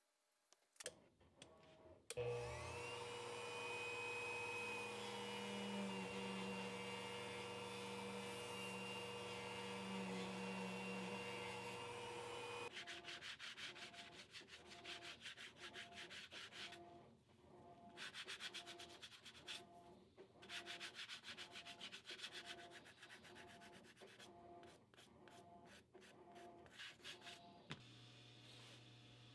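Sanding block rubbed in quick back-and-forth strokes along the edge of a leather collar strap, through the second half. Before that, for about ten seconds, a steady sound with a low hum and a thin whine.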